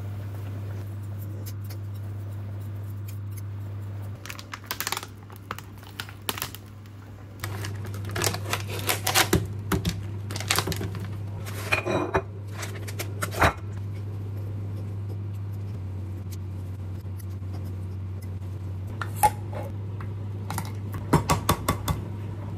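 Kitchen clatter: plates, a glass bowl and cutlery knocked and set down in short clusters of clinks and knocks, with a few sharp taps near the end, over a steady low hum.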